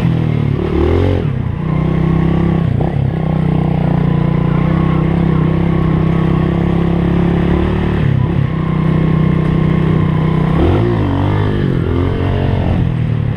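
Trail motorcycle engine running under way at a steady pitch, with short dips and swoops in pitch four or five times as the throttle is eased and opened again.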